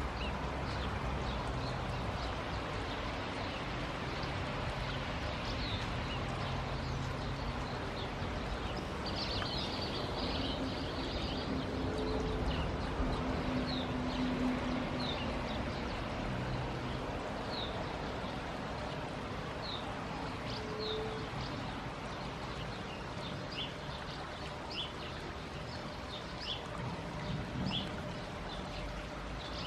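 Outdoor ambience: a steady low rumble with scattered short, high chirps from small birds throughout.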